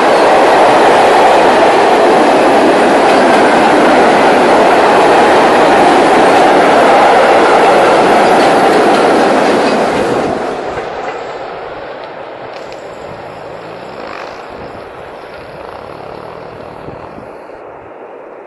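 Freight train of tank wagons rolling past close by: loud, steady wheel-and-rail noise. About ten seconds in, the noise drops away as the end of the train passes and it moves off, leaving a quieter receding rumble.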